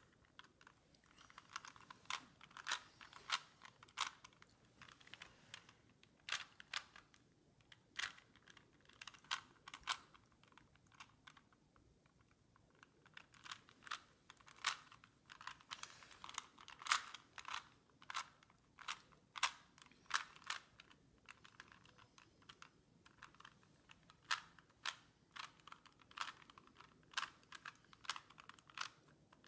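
Rubik's Cube being turned by hand during a timed solve: the plastic layers clicking and clacking in quick, irregular runs, with a short lull about eleven seconds in.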